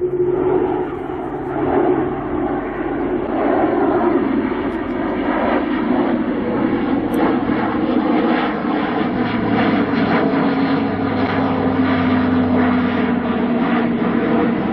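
Airbus A400M Atlas flying past on its four TP400 turboprops, with a loud, steady engine-and-propeller noise carrying the aircraft's distinctive hum, a droning tone that slowly falls in pitch over the second half as the plane passes.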